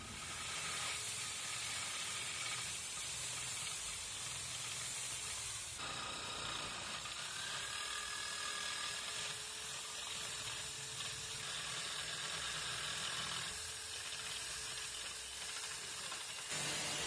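Electric drill with a masonry bit boring into the wall of a clay flower pot: a steady motor whine over the gritty hiss of the bit grinding through the fired clay. The whine breaks off briefly and bends in pitch about six seconds in, then carries on.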